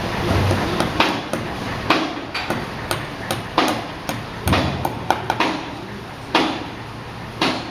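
Repeated hammer blows, about one a second, some with lighter taps between them, over steady background noise.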